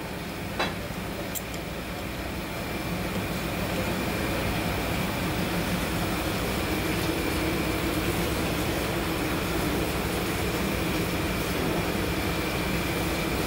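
Steady mechanical hum and hiss with a thin, steady high whine, and a single click about half a second in.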